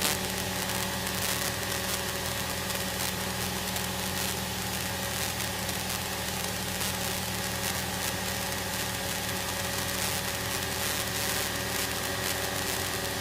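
Steady drone of a single-engine Cessna's piston engine and propeller in flight, heard from inside the cabin: an even hum with a constant pitch over a wash of air noise.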